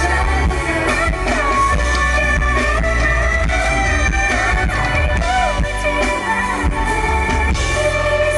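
Pop-rock song performed live: a singer's voice over drums, bass and electric guitar, heard loud through the venue PA. The bass drops out near the end.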